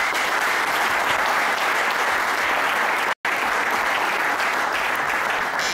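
A roomful of people applauding steadily, with a brief dropout about three seconds in.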